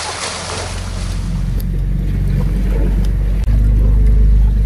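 A low, steady engine drone that builds up and steps louder about three and a half seconds in.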